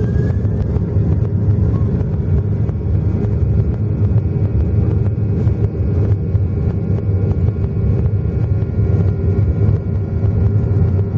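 Cabin noise of a Boeing 737-800 on its takeoff roll, its CFM56-7B engines at takeoff thrust. There is a steady low rumble and several steady whining tones from the engines, with frequent light knocks from the landing gear rolling over the runway.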